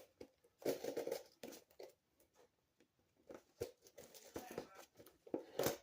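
A cardboard shipping box being handled and torn open: irregular rustling, scraping and tearing of cardboard and packing tape.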